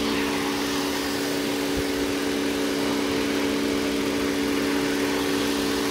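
Toyota Avalon V6 engine idling steadily with an even hum, no change in speed, while individual cylinders are tested for a misfire.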